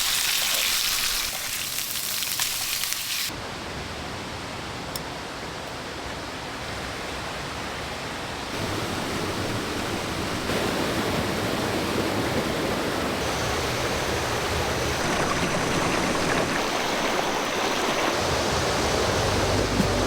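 Rushing water of a waterfall and stream, a steady hiss whose character changes abruptly about 3 and 8 seconds in. A faint, steady high tone joins about two-thirds of the way through.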